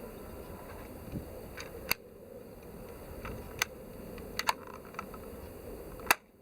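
Crown Model G33 spring-powered air-cocking airsoft pistol being cocked and shot: a handful of short, sharp plastic clicks and snaps spread over several seconds, the loudest near the end.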